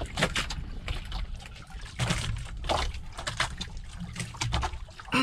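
Sea water running and lapping against a fishing boat's hull in a strong current, with scattered light clicks of spoons on plates and bowls.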